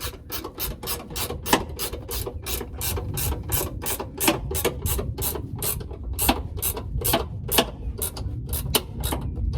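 Hand ratchet wrench clicking steadily, about four clicks a second with a few louder ones, as the step-rail mounting bolts are ratcheted tight.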